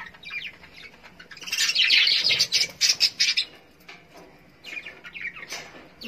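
Budgerigars chirping and chattering: a dense burst of high chirps from about a second and a half in, lasting about two seconds, then scattered chirps near the end.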